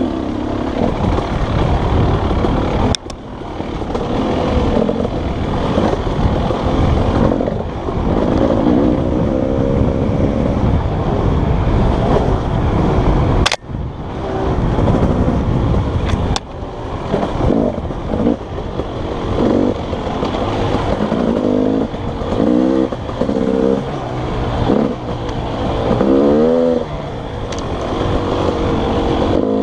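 Dirt bike engine revving up and down as it is ridden, its pitch rising and falling again and again, with two brief drops in level.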